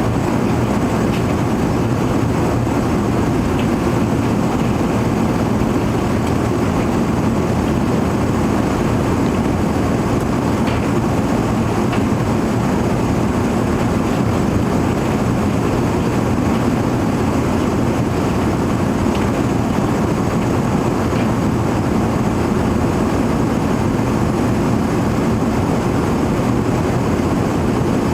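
Airbus A380 cabin noise in flight: engine and airflow heard from inside the passenger cabin as a steady, even drone with a hiss above it.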